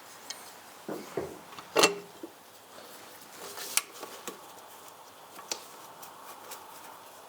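Scattered clinks and knocks of small metal parts and hand tools being handled, the loudest about two seconds in and another just before four seconds.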